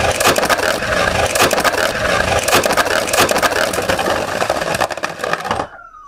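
Two 3D-printed Beyblade Burst spinning tops whirring and scraping in a plastic stadium, with rapid sharp clacks as they collide. The noise stops abruptly near the end as the battle ends.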